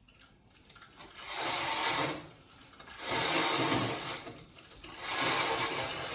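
Window blinds being pulled open by their cord: three pulls about two seconds apart, each a rattling whir lasting about a second.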